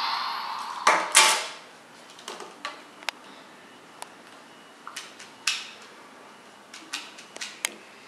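Plastic toys, among them a toy phone, being picked up and handled by a toddler on a glass tabletop: scattered clicks and knocks, the loudest pair about a second in.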